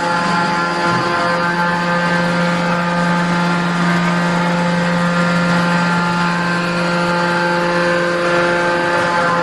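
Hydraulic scrap metal baler's power unit running, a steady machine hum that holds one pitch throughout.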